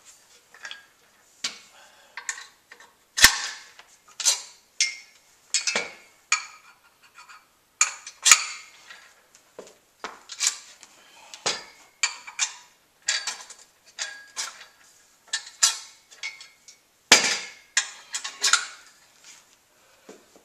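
Irregular metal clanks, clicks and rattles as the JACKRACK exercise stand is put back together: legs dropped and pinned in place, bars and clips fitted.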